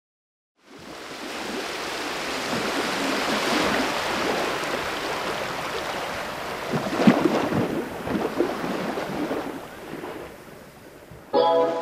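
Rushing noise like sea surf, swelling in quickly and fading away over the last few seconds, with one louder surge about seven seconds in. Pitched music notes start just before the end.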